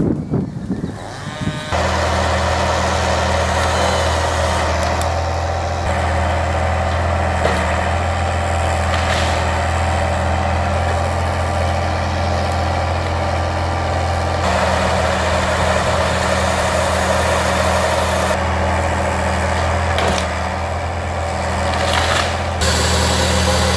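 Heavy logging machine's engine running steadily with a thin whine over a low drone. The tone shifts abruptly several times.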